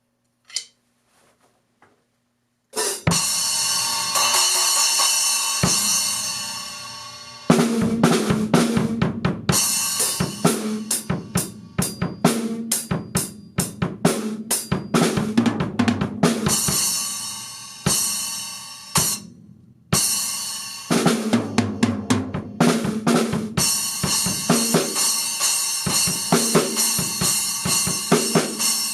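Wuhan 8-inch splash cymbal: after a brief quiet with a single click, it is struck and rings out, fading over about five seconds, then it is played in a drum kit groove with snare, bass drum and hi-hat, with one short pause about two-thirds of the way through.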